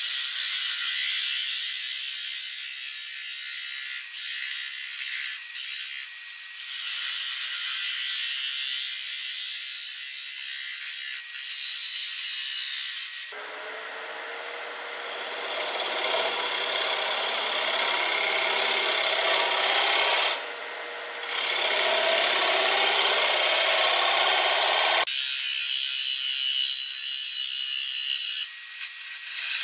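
Lathe tool cutting into the face of a spinning wooden blank on a wood lathe: a steady, high scraping of wood being sheared away, with a few brief breaks. A little before halfway the cut turns deeper and fuller for about ten seconds, with a faint steady hum under it, then returns to the high scrape.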